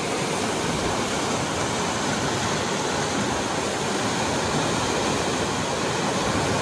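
Steady rush of turbulent whitewater in Big Spring's outflow, the spring's water churning over rocks.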